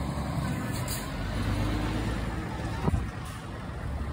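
Diesel engines of Scania tractor units running as the trucks move past, a low steady rumble, with one sharp click about three seconds in.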